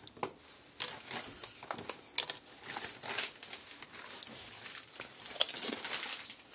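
Scattered crinkles and crunches from a Doritos bag and a tortilla chip as a cat bites and noses at it, with the sharpest crackle about five and a half seconds in.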